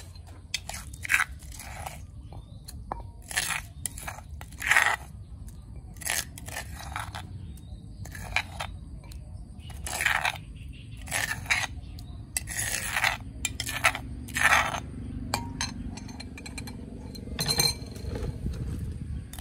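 Metal spoon scraping and clinking against a stone mortar, scooping out pounded paste: a series of short, irregular scrapes.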